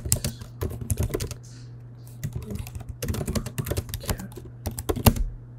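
Fast typing on a computer keyboard: quick runs of key clicks with a brief pause about two seconds in, over a low steady hum.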